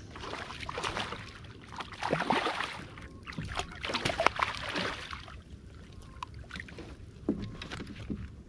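A striped bass thrashing and splashing at the water's surface beside a kayak as it is grabbed by hand and landed, in several bursts of splashing over the first five seconds, then quieter with a few sharp clicks.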